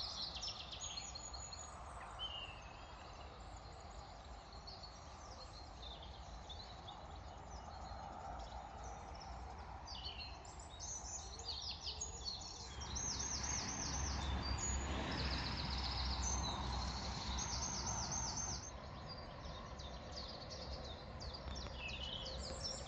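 Small birds singing and chirping, with many high trills and quickly repeated notes, over a low steady outdoor background noise that grows louder for about five seconds in the middle.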